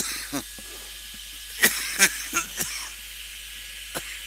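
Handheld Bosch heat gun running with a steady hiss of blown air, drying paint on a painted vase. A few brief louder sounds come about halfway through, and a short click near the end.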